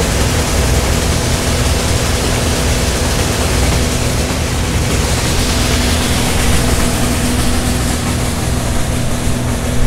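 Combine harvester running close by, its unloading auger emptying harvested beans into a hopper: a loud, steady drone with a constant hum.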